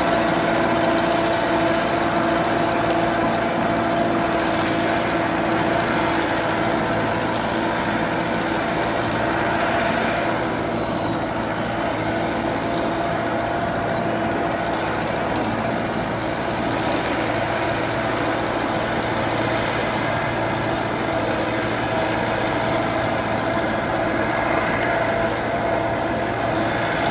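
Kubota L4508 tractor's diesel engine running steadily as the tractor works on cage wheels through a wet paddy, pulling a water-channel cutting attachment. A steady hum sits over the engine noise.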